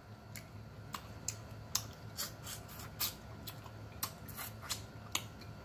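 Close-up sounds of boiled crawfish being peeled and eaten by hand: an irregular string of sharp little clicks and crackles from shell and mouth, about three or four a second.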